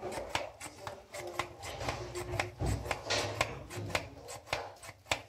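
Hand pump of a portable handheld espresso maker being worked stroke after stroke, making sharp plastic clicks about three times a second. No espresso comes out of it, a failed extraction.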